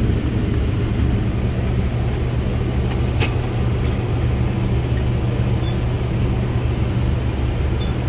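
Case IH combine harvester running steadily with a deep, even hum while unloading grain through its unloading auger. A single short click about three seconds in.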